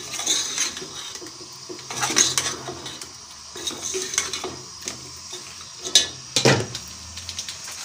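Metal ladle scraping and clinking against an aluminium cooking pot as chicken pieces are stirred through oil and spices. The strokes are irregular, with the loudest scrapes about two seconds in and again around six seconds.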